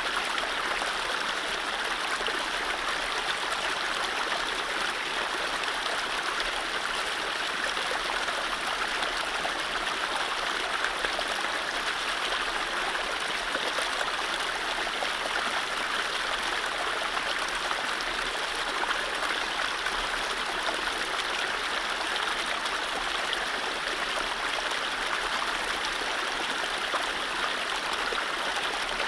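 Mountain stream flowing over low rapids: a steady rushing and gurgling of water over rocks.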